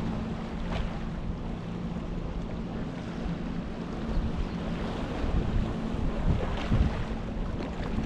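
Sea water lapping and washing against the shore, with wind gusting on the microphone and a steady low hum underneath.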